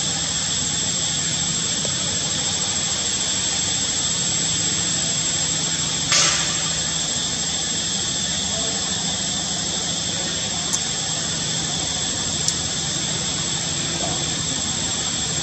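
Steady outdoor ambience: a continuous high-pitched whine over an even hiss. About six seconds in there is one short, loud, sharp sound, and later two faint ticks.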